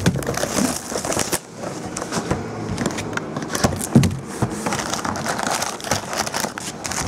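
Cardboard hobby box of 2012 Topps Tribute baseball cards being opened and its foil-wrapped packs pulled out: irregular crinkling of foil wrappers and rustling and scraping of cardboard, with a louder knock about four seconds in.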